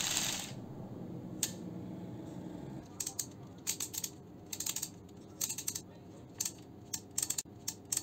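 Spring motor of a laser-cut wooden ROKR Cruiser motorcycle model being wound by hand: a ratchet in the wooden gearing clicks in short clusters. The clicking starts about three seconds in and comes in a cluster roughly every second.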